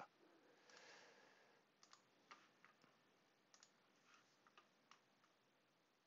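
Near silence: quiet room tone with faint, irregular clicks from working at a computer, about eight of them scattered through the middle few seconds.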